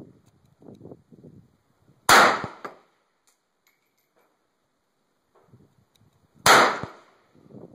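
Two single rifle shots from a Norinco Type 56 SKS semi-automatic rifle in 7.62×39mm, about four and a half seconds apart. Each is a sharp crack that dies away quickly.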